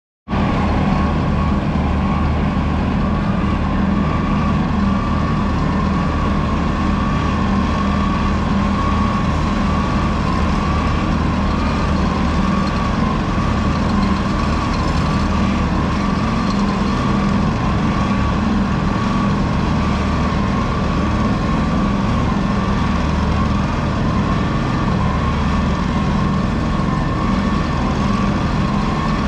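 Heavy diesel road-construction machinery running steadily, with a high whine that wavers up and down about once a second over the low engine sound.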